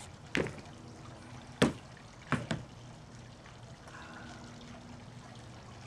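Smooth stones being lifted off a cardboard cover and set down on a wooden table: four sharp knocks, the second the loudest, the last two close together.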